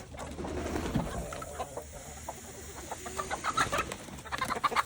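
A flock of chickens clucking, sparse at first, then many short clucks in quick succession that get louder over the last two seconds.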